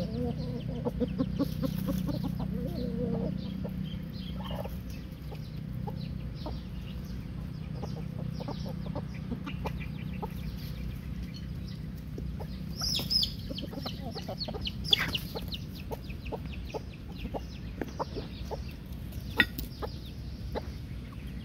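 Roosters clucking low in the first few seconds, with many short, sharp taps scattered throughout and a brief high call about 13 seconds in.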